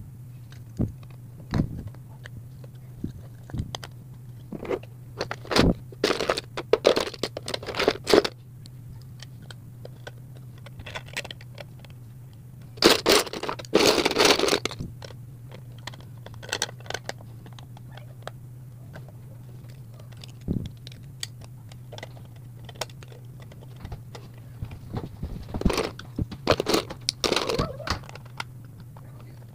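Plastic Lego pieces clicking and clattering as they are handled and pressed onto a baseplate, in scattered clicks and short bursts of rattling, over a steady low hum.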